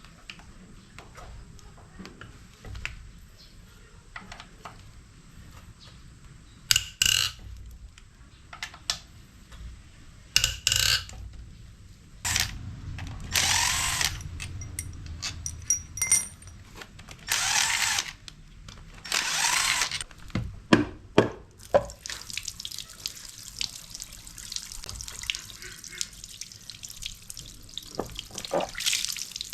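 Engine teardown workshop sounds: scattered metallic clicks and knocks of tools on engine parts, then three loud hissing bursts of one to two seconds each from a power or air tool. A steady hiss sets in for the last several seconds.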